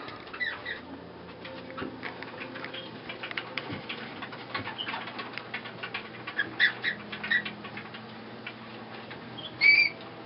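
Wooden warping mill turning by hand as yarn is wound onto it, with a run of light clicks and short high squeaks. The loudest squeak comes near the end.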